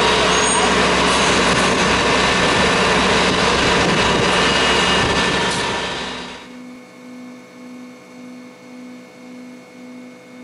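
Aerial ladder fire truck's diesel engine running steadily with the ladder raised, a loud dense drone. About six seconds in it fades out, leaving a much quieter low tone that pulses about twice a second.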